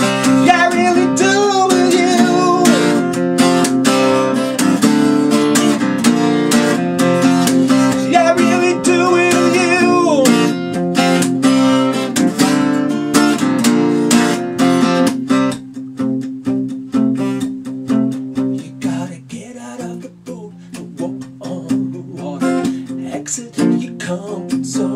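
Steel-string acoustic guitar strummed in a steady rhythm, with a sung vocal line over it for roughly the first ten seconds. From about fifteen seconds in the playing turns softer and sparser.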